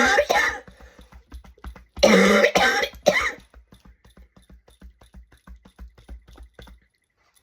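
Gentle, rhythmic knocking of the hand on the chest, about five soft thuds a second: a qigong lung-clearing tapping done with a loose wrist. It is broken by three loud coughs near the start and at about two and three seconds in. The knocking stops about seven seconds in.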